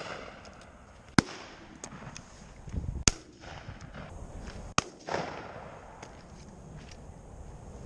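Shotgun shots during a driven game shoot: three loud reports about a second, three seconds and nearly five seconds in, each trailing off in a short echo, with fainter distant shots from other guns between them.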